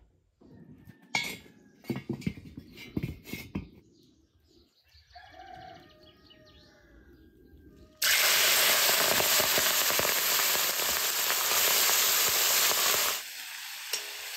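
Light knocks and clatter, then water sizzling loudly in a hot wok as it is scrubbed with a brush, starting suddenly about halfway through. Near the end the hiss drops to quieter frying of eel pieces in the steaming wok.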